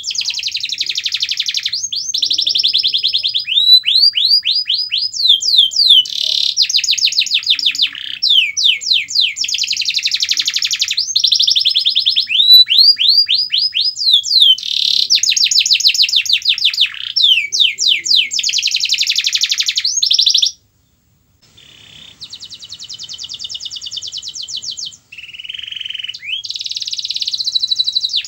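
Yellow canary singing long, fast trills and rolls, phrase after phrase of rapid repeated notes, with a short break about two-thirds of the way through before the song resumes more softly.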